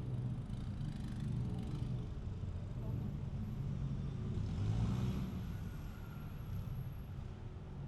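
Motor traffic on a busy city road, a steady low rumble of engines and tyres, swelling as a vehicle passes close about five seconds in.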